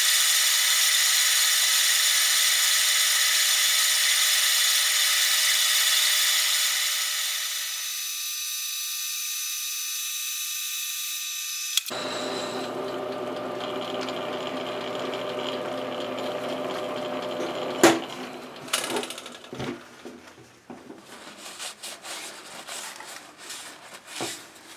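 Metal lathe turning a Morse taper on a steel bar: the cutting tool shearing off chips makes a steady high-pitched hiss, which eases about eight seconds in. From about twelve seconds in the lathe runs with a lower hum, then a loud clunk and a string of knocks and clicks follow as the workpiece is handled.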